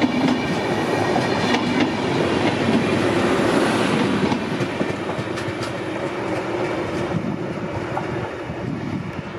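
Express train's passenger coaches passing at speed close by, the wheels clattering over the rail joints, and then the sound fading as the last coach draws away.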